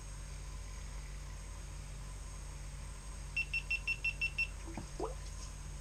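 A quick run of about seven short, high electronic beeps lasting about a second, starting a little past the middle, over a steady low hum; a brief rising squeak follows.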